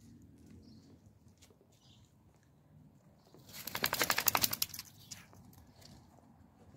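A bull terrier shaking its head and body for about a second, its ears flapping in a fast rattle, starting about three and a half seconds in.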